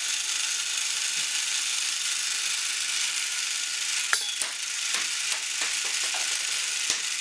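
LEGO motor geared up to spin a rubber-tyred accelerator wheel extremely fast, running with a steady high whirring hiss. A few sharp clicks come in the second half as the module and a small ball are handled at the wheels.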